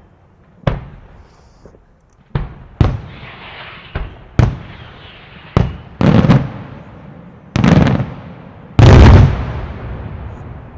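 Fireworks bursting overhead: about nine sharp bangs, each followed by a rolling echo. The bangs come closer together and grow heavier, and the loudest and longest one comes about nine seconds in.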